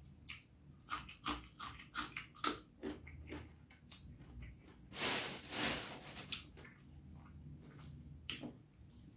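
Close-miked eating sounds of a mouthful of beef curry and rice being chewed: a run of short wet smacking clicks, then a louder noisy stretch lasting about a second from about five seconds in, and a few more smacks near the end.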